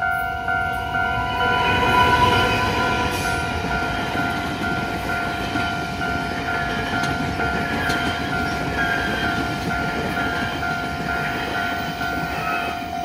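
Taiwan Railway express train hauled by an E200-series electric locomotive passing at speed over a level crossing: a steady rumble and rush of wheels and carriages, loudest about two seconds in as the locomotive goes by. Throughout, the crossing's electronic warning bell rings about twice a second.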